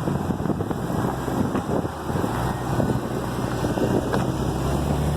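Jeep Cherokee on 33-inch tires crawling over rock, its engine running with the revs stepping up about two seconds in and again near the end. Scattered knocks and wind on the microphone are heard over it.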